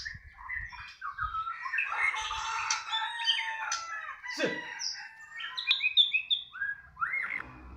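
Caged oriental magpie-robin singing a loud, fast, varied song of whistles and chirps, its excited 'balak' display song after the cage cover is lifted.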